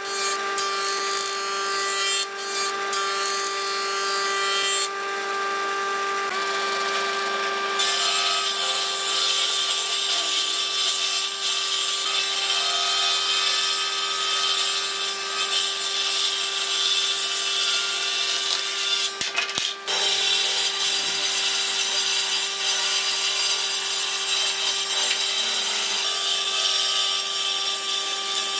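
Combination woodworking machine running, first planing a wooden beam on its jointer, then its circular saw ripping boards lengthwise. A steady machine tone runs under the noise of the cut, and the sound shifts abruptly a few times.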